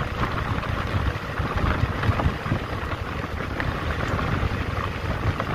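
Motorcycle in motion at speed: wind buffeting the microphone over road and engine noise.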